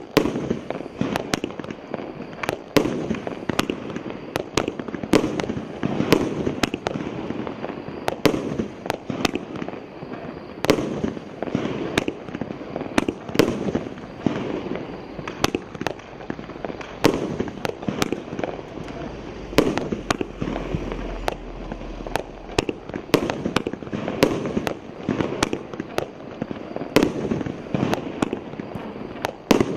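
Galaktika 'Ulybka' A7203 firework battery firing shot after shot, sharp bangs about twice a second over a continuous noisy rush.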